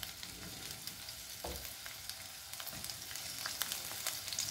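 Tomato rings frying in a thin layer of hot oil in a nonstick frying pan: a quiet, steady sizzle with fine crackling pops. A couple of soft knocks come as more rings are laid into the pan.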